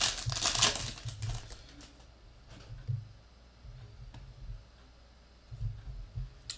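Foil wrapper of a football trading-card pack crinkling as it is handled and opened, densest in the first second and a half. After that come a few light clicks and taps as the cards are handled.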